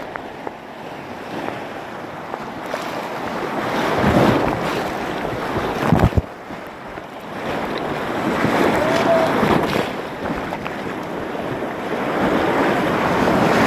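Whitewater rapids rushing and splashing around an inflatable kayak, with a wave slapping over the camera in a sharp thump about six seconds in.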